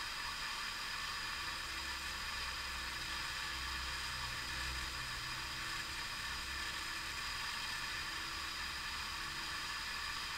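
Steady hiss of recording noise with a faint low hum underneath; nothing else stands out.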